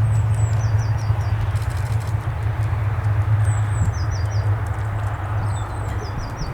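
Jet airliner engine noise, a steady rumble that slowly fades as the aircraft moves away. A small songbird repeats a short high phrase three times, two falling notes then a quick run of four chirps.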